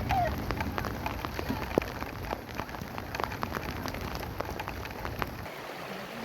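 Rain falling on surfaces, with many separate drop hits standing out over a steady hiss. A low rumble underneath stops about five seconds in.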